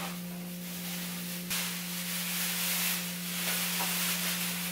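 Rustling of artificial Christmas tree branches and a plastic bag as the tree is taken down and bagged, over a steady low hum. A click comes about a second and a half in, and after it the rustling gets louder.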